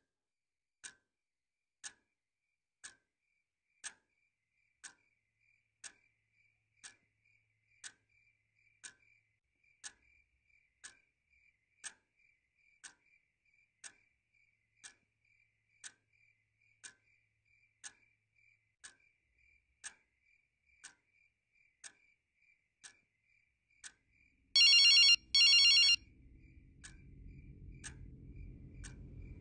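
A clock ticking about once a second in a quiet room. Near the end a phone rings loudly in two short trills, and a low rumble comes in under it.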